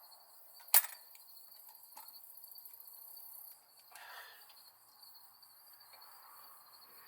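Crickets chirping steadily in a high pulsing trill, with a single sharp metallic clank from a tool against the engine about a second in. A run of faint quick ticks follows from about two to three and a half seconds in, and a brief rustle near four seconds.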